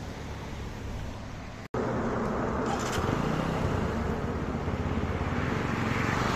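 Low road ambience, then after a sudden cut about two seconds in, a TVS Apache motorcycle's single-cylinder engine running at low revs as the bike rolls slowly closer, growing steadily louder.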